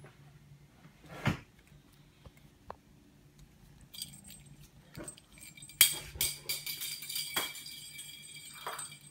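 Small jingle bell jingling and rattling in quick shakes as kittens play, starting about four seconds in and loudest near six seconds, with a few light knocks earlier.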